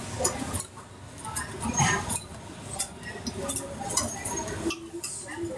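Busy street-food stall ambience: scattered clinks and knocks over a steady background hum, with a brief voice about two seconds in.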